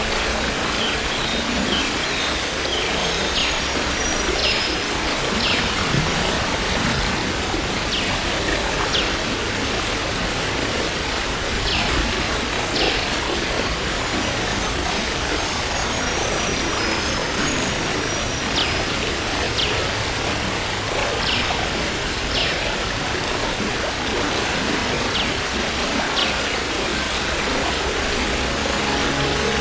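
Steady rain falling, with short high chirps, often in pairs, every second or so.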